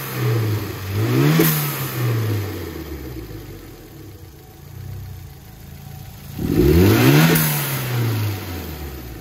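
Turbocharged car engine blipped twice, once about a second in and again near seven seconds. Each time the revs peak and the throttle shuts, the Bonalume blow-off valve vents with a short hiss, and the revs fall back to idle.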